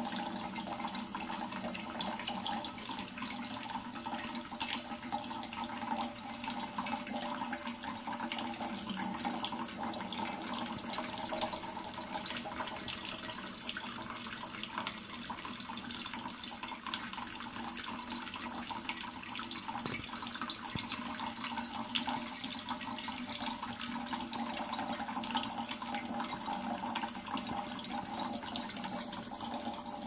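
Kitchen faucet running a thin, steady stream that splashes onto a plate below.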